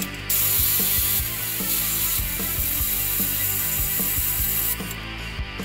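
Snap-on CT761 14.4 V cordless 3/8-inch impact wrench hammering on a nut torqued to 150 foot-pounds. It runs for about four and a half seconds, louder for the first two, then cuts off sharply.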